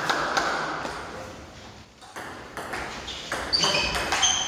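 Table tennis rally: the ball clicking sharply off the bats and table in a quick, regular rhythm, starting about halfway through, with shoes squeaking on the floor near the end.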